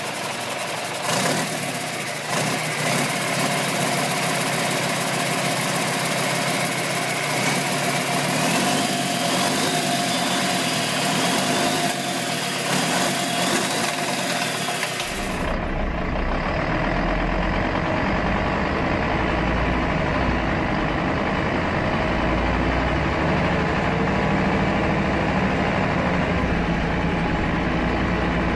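Turbocharged 10-litre MAN D2865 inline-five diesel engine running, its pitch rising and falling a few times in the first half. About halfway through it changes to a deeper, more muffled engine sound from another recording.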